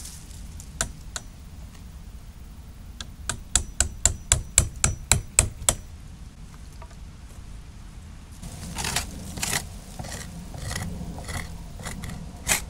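Claw hammer striking a wood chisel, a couple of single taps and then a quick run of about ten strikes at roughly four a second, chipping rotted wood out of a window sill. Later a blade scrapes the soft rotted wood.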